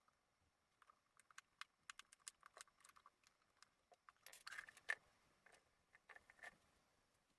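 Faint scattered clicks and light clattering of small parts being handled, with a short, denser burst of clatter about four to five seconds in.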